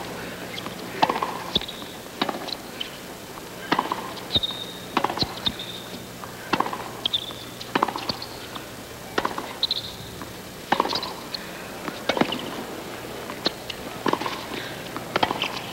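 Tennis ball struck back and forth by racquets in a baseline rally on a hard court, a sharp pock about every second or so, with short high squeaks of the players' shoes on the court between hits.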